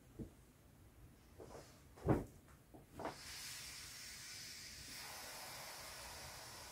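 A few soft knocks as the inflatable is handled, the loudest about two seconds in, then from about three seconds in a steady hiss of air escaping from an Intex Wave Rider GP500 inflatable jet ski as it deflates.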